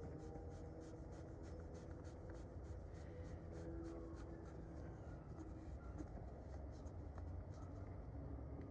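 Faint, repeated scratchy rubbing and light ticks of a fuel filter bowl's ribbed collar being turned by hand onto its housing and screwed down until tight.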